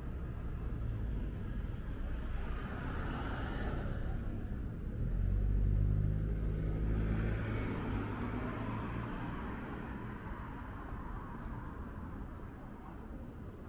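A car's engine running close by, swelling to loudest about six seconds in and then fading, over the steady hum of street traffic.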